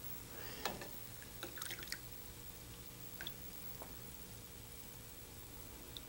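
Faint dripping and splashing of liquid with a few light clinks of a metal slotted spoon, as fried gulab jamuns are lifted out of the ghee, shaken and dropped into sugar syrup.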